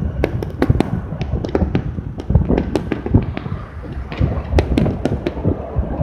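Wind buffeting the microphone of a moving vehicle: a dense low rumble with many sharp crackling pops scattered through it.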